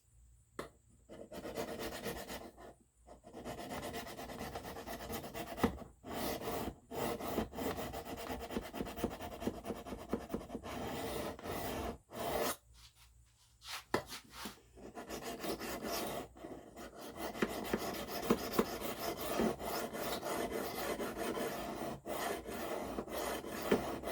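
Knife blade of S35VN steel being stroked back and forth over a coarse sharpening stone: a continuous scraping rasp, broken by a few short pauses, as the edge bevels are reground.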